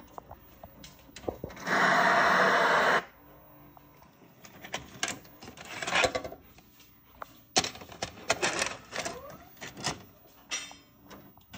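TV static hiss for about a second, then the clicks and whirs of a TV/VCR combination's tape mechanism as a VHS cassette is ejected and loaded.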